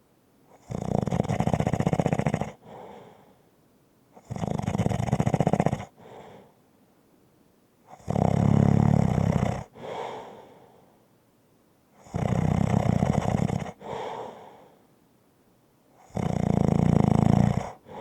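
Light, rumbling snoring: five loud snores on the in-breath, about one every four seconds, each followed by a softer breath out.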